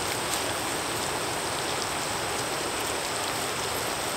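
Mushrooms sizzling in hot bacon fat in a frying pan, a steady hiss with a few faint pops.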